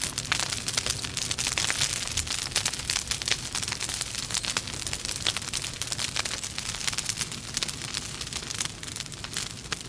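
Wood logs burning in a fireplace, crackling with a dense run of sharp pops and snaps over a steady hiss.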